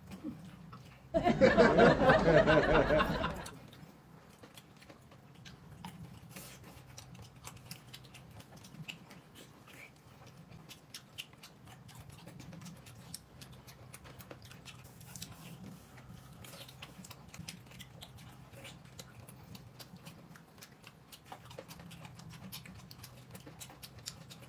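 Close-up eating sounds: soft chewing and mouth noises with many small clicks. About a second in, a loud, wavering, voice-like sound lasts about two seconds.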